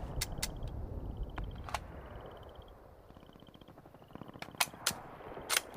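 The echoing tail of an SVD Dragunov rifle shot (7.62×54mmR) fades away over the first few seconds. Several sharp clicks follow, the loudest three near the end, over a faint, high chirping tone that comes and goes.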